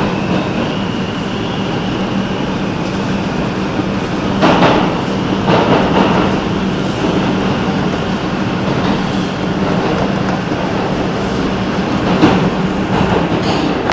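Inside an R142 subway car running through a tunnel: steady rumble of steel wheels on rail under a steady low hum, with a faint high whine in the first few seconds. The wheel rattle surges louder a third of the way in and again near the end.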